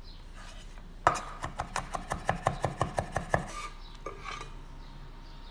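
Cleaver chopping garlic cloves on a wooden cutting board: a quick run of sharp knocks, about six a second for two and a half seconds, followed by a couple of lighter knocks.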